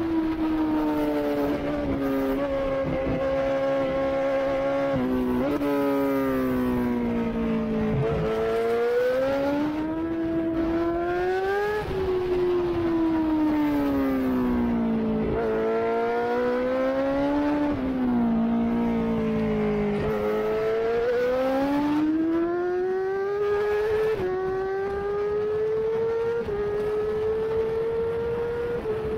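Honda CBR1000RR-R Fireblade's inline-four engine at racing speed, its note rising and falling again and again as the rider accelerates and brakes, with sudden jumps in pitch at gear changes.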